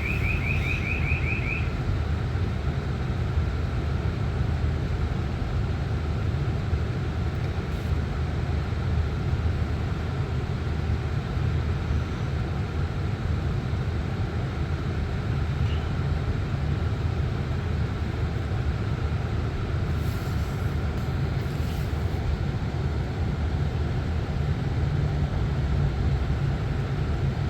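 Steady low rumble of a stationary Lexus ES350 heard inside its cabin, with a quick run of short high beeps in the first second and a half.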